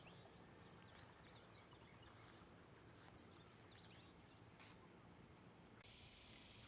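Faint, scattered bird chirps over quiet outdoor ambience. Just before the end the background changes abruptly to a steadier, brighter hiss.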